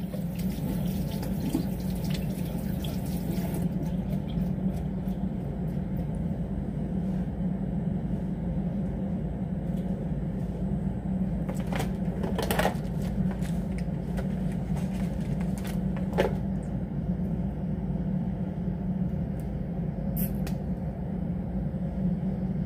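Steady low background hum, with a few light clicks in the second half.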